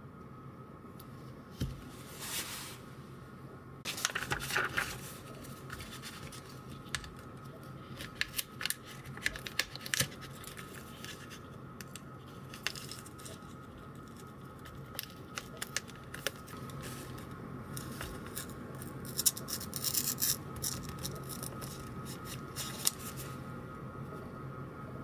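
Folding knife cutting and scraping through material in irregular short strokes, with scattered sharp clicks and taps, over a faint steady hum.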